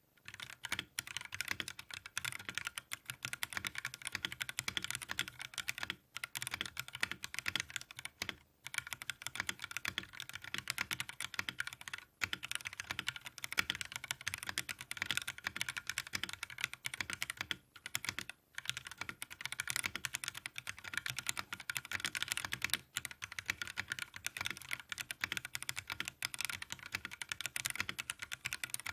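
Fast, continuous typing on a mechanical keyboard with Akko CS Jelly Black linear switches in an aluminium case, a clacky sound, with a few brief pauses between bursts.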